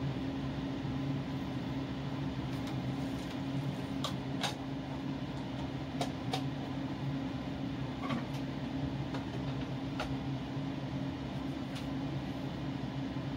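Steady low hum of a running kitchen appliance or fan, with scattered faint clicks and ticks.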